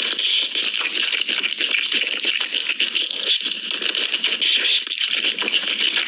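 Close-up crunching and chewing of crispy Korean fried chicken: a dense, continuous crackle.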